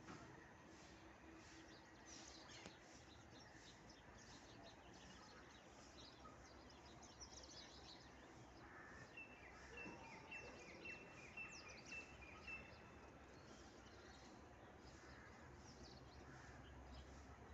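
Faint mixed bird calls and chirps from several birds, with one bird repeating a short high note about eight times, roughly two a second, around the middle.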